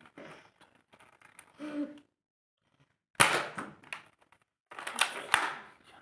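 Toy soft-bullet gun being fired: faint clicks of handling, then a sharp clack about three seconds in and a second, louder burst of quick knocks about five seconds in.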